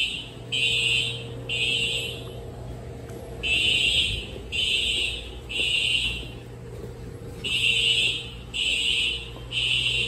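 Simplex TrueAlert fire alarm horns sounding the temporal-3 evacuation signal: three short blasts, a pause, then three more, repeating about every four seconds, with a faint steady hum underneath.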